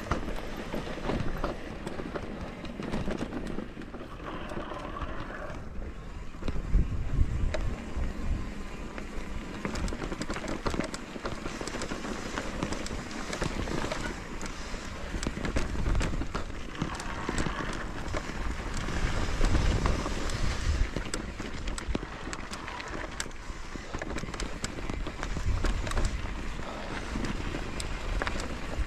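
Wind buffeting the microphone: a low, uneven rumble that swells and fades over a steady rushing noise.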